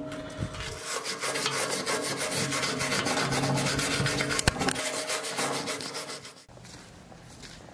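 Hand wire brush scrubbing a fresh weld bead on steel plate in rapid back-and-forth strokes, cleaning off slag; the scrubbing stops about six and a half seconds in.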